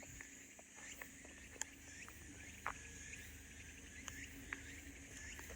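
A steady high-pitched insect chorus in summer woodland, with many short chirps and ticks scattered through it.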